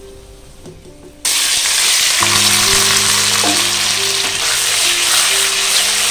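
Raw pork belly cubes go into hot fat and melted rock sugar in a wok. A loud sizzle starts suddenly about a second in and keeps going steadily as the pork fries.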